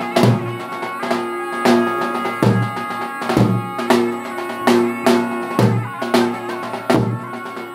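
Zurna (surle) shawm music over a large double-headed davul (lodër) drum beaten with a stick: held, reedy melody tones with heavy drum beats a little more than once a second and lighter strokes between.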